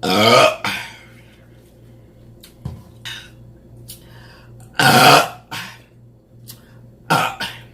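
A person burping loudly three times: a long burp at the start, another about five seconds in, and a shorter one near the end.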